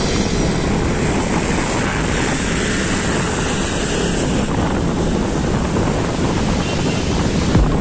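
Steady wind rush over the microphone of a moving motorcycle, with vehicle and road noise beneath.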